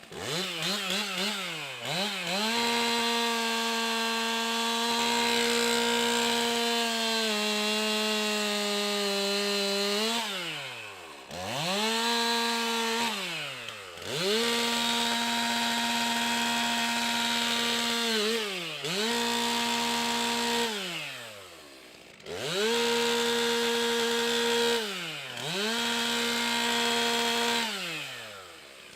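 Stihl MS 362 C-M two-stroke chainsaw cutting wood in repeated cuts. The engine revs up to a steady full-throttle scream, holds for a few seconds, and drops back to idle, about seven times over. Its pitch sags slightly under load during the long first cut.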